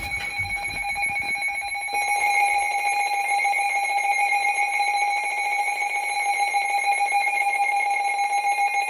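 Emergency Alert System attention signal: a loud, steady two-tone alert tone that steps up in level about two seconds in, ahead of a severe thunderstorm warning.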